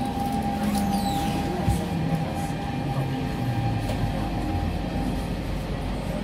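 SMRT C651 train's Siemens GTO-VVVF traction equipment whining down in pitch as the train brakes into a station, over the steady rumble of the car on the rails. A single short knock comes about a second and a half in.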